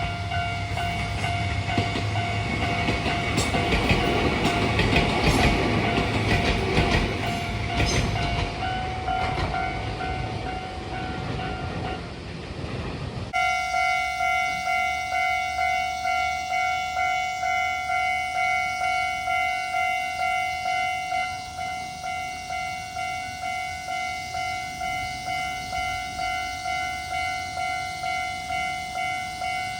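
A train passing over a level crossing, wheels clacking over rail joints, while the crossing's warning bell rings. About 13 seconds in it cuts to a Japanese level crossing's electronic warning bell ringing on its own, about three rings every two seconds.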